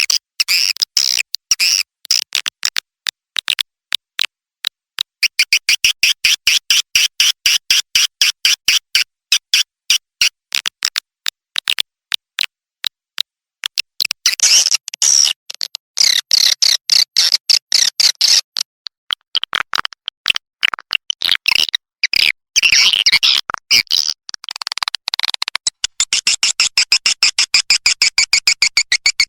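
Edible-nest swiftlet calls from a swiftlet-house lure track: rapid trains of sharp clicking chirps, several to the second, that run together in places into continuous high twittering, broken by short abrupt silences.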